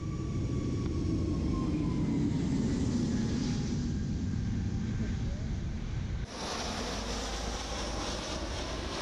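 Jet airliner engines on takeoff and climb-out: a steady low rumble with a whine that slowly falls in pitch. About six seconds in the sound changes abruptly to a hissier jet noise.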